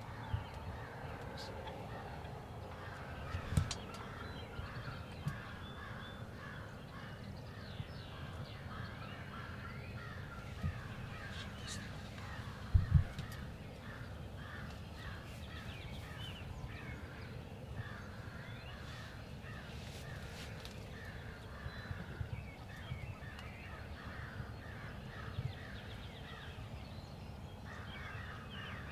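Crows cawing over and over in the background, many short harsh calls overlapping. Low thumps stand out now and then, the loudest about 13 seconds in.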